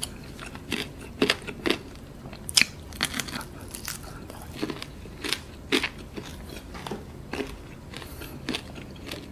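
Close-up chewing and biting of crispy fried chicken: irregular wet mouth sounds broken by sharp crunches, several a second at times.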